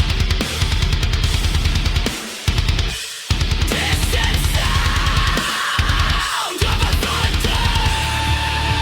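Heavy metal music: a fast kick-drum beat with cymbals, cutting out briefly several times, and a held high note over the second half.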